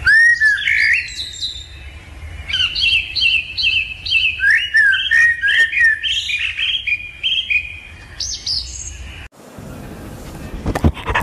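A bird chirping and whistling: a quick series of short whistled notes sliding up and down, which stops abruptly about nine seconds in. A few sharp clicks follow near the end.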